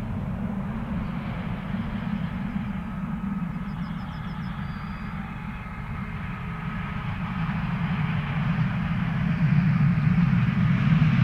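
Class 750 'Brejlovec' diesel-electric locomotive's V12 diesel engine running as it hauls a short freight train. It grows steadily louder as the train approaches.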